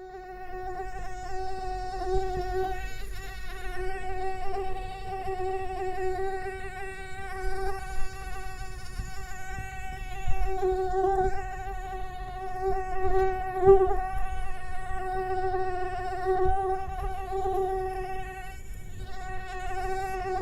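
Mosquito in flight, its wingbeats making a steady, high, whining buzz rich in overtones that wavers slightly in pitch and loudness. A low rumble with a few soft thumps lies underneath.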